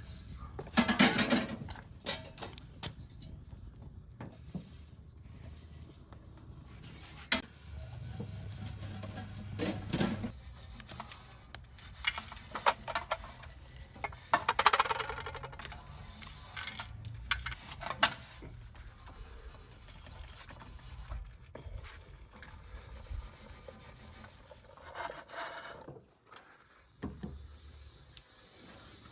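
Irregular rubbing and scraping by hand, in uneven strokes with louder bursts about a second in and again around the middle.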